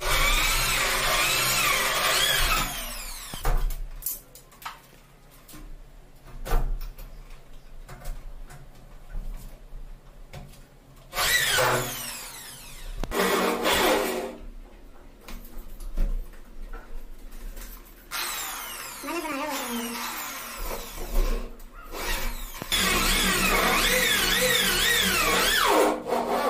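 Electric drill running in several bursts, its motor whine rising and falling in pitch as the trigger is squeezed and eased, drilling into an aluminium door frame. Light clicks and knocks of handling fall between the runs.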